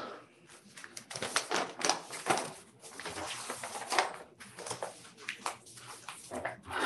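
Paper rustling and crackling in irregular bursts as tender bid documents are handled and leafed through.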